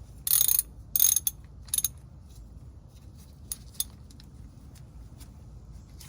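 Hand ratchet wrench clicking: three short bursts of ratcheting in the first two seconds, then a few scattered single clicks.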